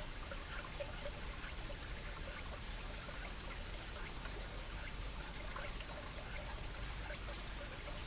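Small mountain stream trickling and gurgling over rocks: a steady wash of running water with many small scattered splashes and plops.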